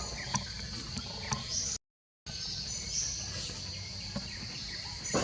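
Steady high-pitched insect drone with a few faint clicks. The sound cuts out completely for about half a second near the two-second mark.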